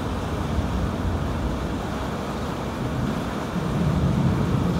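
Thunderstorm noise: a steady low rumble that swells about three and a half seconds in.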